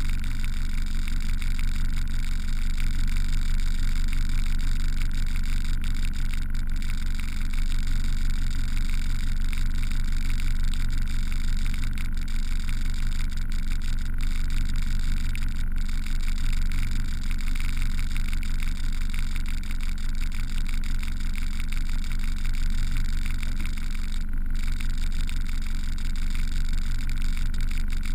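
Boat engine running steadily under way, a constant low drone that does not change.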